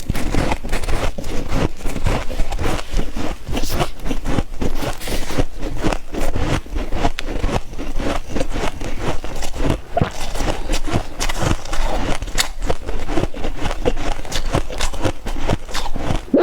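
Freezer frost crunching and crackling, many small crunches a second without a break.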